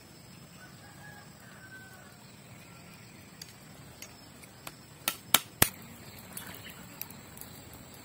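Kitchen knife knocking on cooked mud crab claws on a wooden board to crack the shells: a few light taps, then three sharp knocks in quick succession about five seconds in, then a couple of lighter taps.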